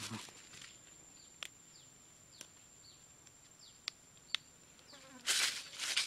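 Steady high-pitched insect drone with short falling chirps and a few sharp ticks. About five seconds in there is a loud, brief rustle of something being handled.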